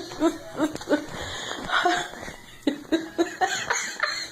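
A dog giving a string of short, pitched whining yelps, several a second with brief pauses between them.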